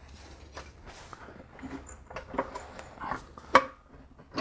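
Scattered clinks and knocks of an aluminium oil pan being worked up into place under a BMW E46 engine, with one sharper knock about three and a half seconds in.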